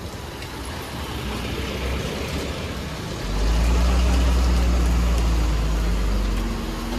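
Loaded Tata dump truck's diesel engine pulling away. Its engine gets suddenly louder about three seconds in, and its pitch climbs toward the end as it accelerates.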